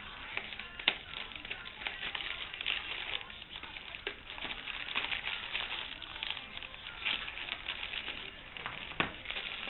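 Packaging rustling and crinkling as a parcel is unwrapped by hand, with a sharp click about a second in and another near the end.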